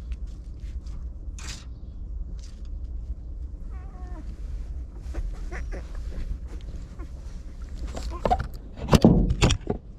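Newborn puppies squeaking and whimpering in thin wavering whines, over a steady low rumble, with scattered clicks and a cluster of loud knocks and rustles near the end.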